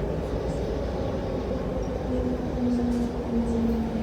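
Running noise inside a CRRC Changchun-built MTR electric multiple unit between stations: a steady low rumble. About halfway in, a low whine comes in and sinks slightly in pitch.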